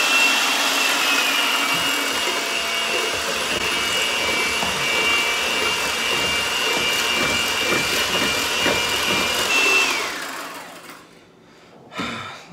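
Electric hand mixer whipping egg whites into meringue for macarons: a steady, high motor whine that winds down and stops about ten seconds in.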